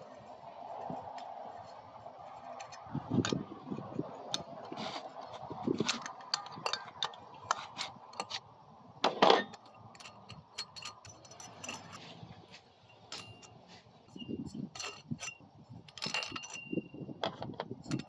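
Irregular metallic clinks, taps and rattles of hand tools and small steel valvetrain parts on a small-engine cylinder head: rocker arms and studs being taken off. A few of the clinks ring briefly.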